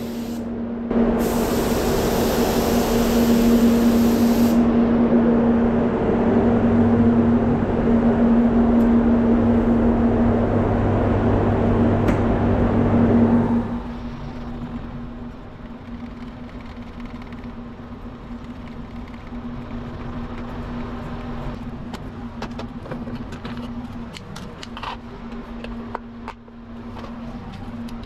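Paint spray booth air handling: a loud rush of air over a steady hum that drops off suddenly about halfway through, leaving a quieter steady hum with a few light clicks and knocks near the end.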